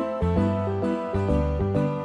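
Background music: a quick succession of pitched notes over a steady bass.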